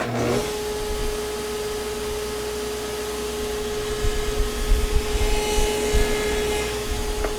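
Table saw with a dado stack running, starting suddenly and holding a steady whine, with uneven low noise about four to six seconds in.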